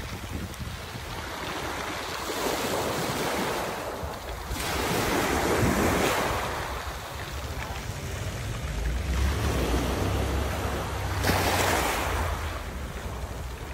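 Small sea waves breaking and washing up a pebble beach, the surf swelling and falling back about every three seconds. Wind buffets the microphone with a low rumble in the second half.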